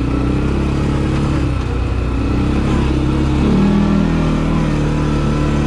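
A CFMoto 450L ATV's engine running under way, with a steady engine note that shifts in pitch and gets slightly louder about three and a half seconds in.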